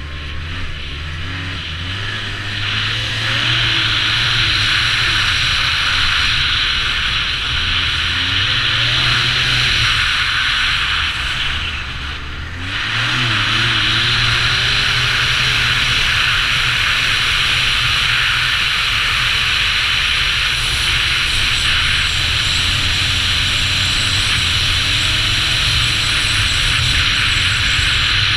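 2009 Arctic Cat Z1 Turbo snowmobile's 1,056 cc turbocharged four-stroke engine running under throttle at riding speed, with a steady hiss over it. The engine note climbs in the first few seconds, dips briefly about twelve seconds in as the throttle eases off, then picks back up and holds steady.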